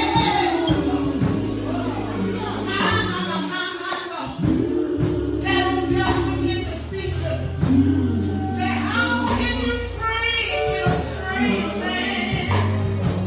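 Gospel choir singing over instrumental accompaniment with a steady beat.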